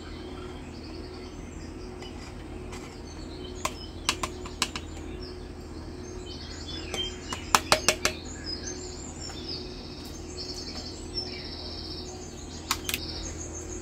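Small birds chirping in short, repeated high phrases over a steady low hum, with scattered sharp clicks and taps. The loudest clicks come in a quick cluster about eight seconds in.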